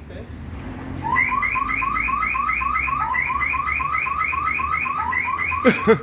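G4S cash-in-transit van's panic alarm sounding: a fast electronic chirping, about four rising chirps a second. It starts about a second in and cuts off just before the end.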